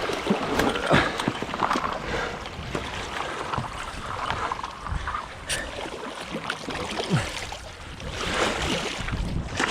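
Fast floodwater splashing and sloshing around paddleboards and a swamped canoe being pulled free of branches, with a few sharp knocks.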